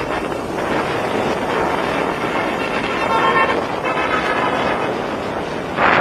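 Steady rush of floodwater pouring through a river barrage's gates, with wind buffeting the microphone. A short pitched tone sounds over it about three seconds in.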